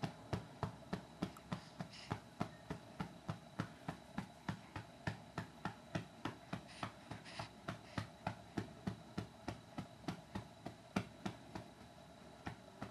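A hand patting a baby's back to burp it: a steady run of soft pats, about three a second, over a faint hum.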